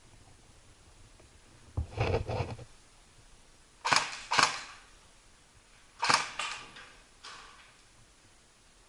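Airsoft replicas firing single shots in short groups: a quick run of cracks about two seconds in, two sharp loud cracks around four seconds, another pair around six seconds, and a fainter one just after seven.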